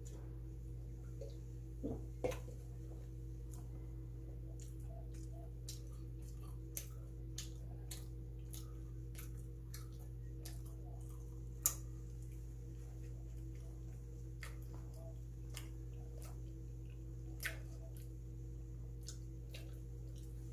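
Quiet eating sounds from chewing bungeoppang, fish-shaped pastries: irregular small mouth clicks and soft squishes, with a few sharper clicks. A steady low electrical hum lies underneath.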